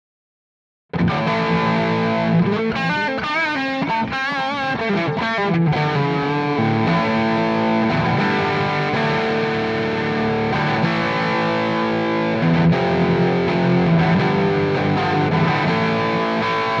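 Electric guitar, a Fender Telecaster with Texas Special pickups through an amp simulator with delay, starting to play about a second in: ringing sustained notes and chords, with a wavering vibrato on the notes a few seconds in.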